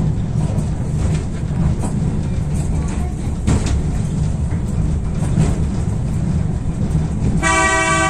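Mitake Tozan Railway funicular car climbing, with a steady low rumble and scattered clicks from its wheels on the rails. Near the end, a short horn toot of about half a second.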